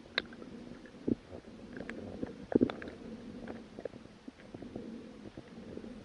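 Muffled underwater sound: a low murmur of moving water with scattered irregular small clicks and knocks, and two louder thumps about a second in and two and a half seconds in.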